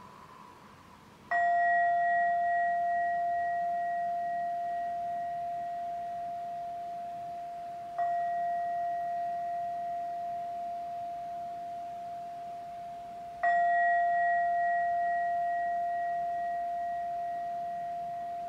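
A singing bowl struck three times, about six seconds apart. Each strike rings on with a clear steady tone that slowly dies away with a slight waver.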